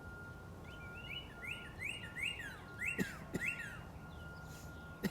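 Northern cardinal singing a run of about seven repeated whistled notes, each sliding up and then down, at roughly two to three notes a second. A faint steady high tone runs underneath, and two sharp clicks come about three seconds in.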